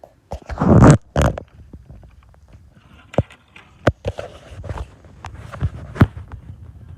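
Silicone pop-it fidget toy being pressed, its bubbles popping in a string of sharp, irregular clicks. A loud rustling burst of handling comes just under a second in.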